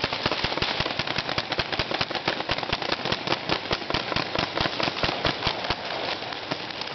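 About ten paintball markers firing at once: a dense, uneven stream of sharp pops, several shots a second, overlapping.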